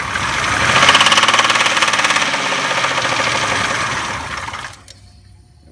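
2002 Buick Century's 3.1L V6 engine running with a bad, rapid knocking that gets louder about a second in, then cuts off abruptly near the end. The owner does not know the cause.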